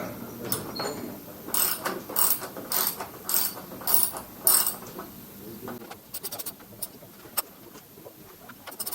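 Ratchet wrench turning a nut: about six sharp ratcheting strokes in quick succession, then a stretch of quieter, faster clicking about six seconds in.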